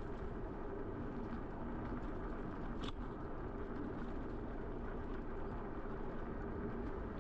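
Steady rumble of a moving ride, with wind and road noise on the microphone and a faint hum. A single light click about three seconds in.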